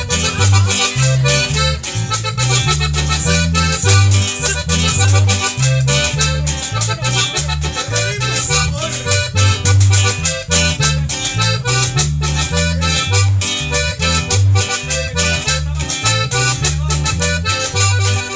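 Live Latin band music playing an instrumental passage: an accordion carrying the melody over a moving bass line and steady percussion.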